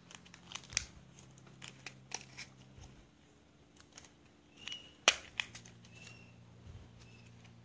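Matchstick being pushed into the side of a cardboard matchbox to pierce a hole: faint scattered crinkling clicks and scrapes, with one sharper click about five seconds in.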